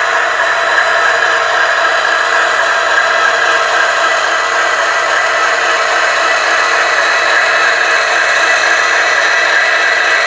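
H0-scale model diesel locomotive's sound decoder playing a steady diesel engine running sound through the model's small loudspeaker.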